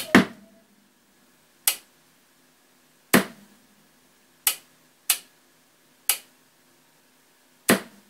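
Pioneer Rando 2000 stereo receiver giving seven sharp pops, irregularly spaced, as its power is switched, the pop on startup, with a faint steady low hum underneath.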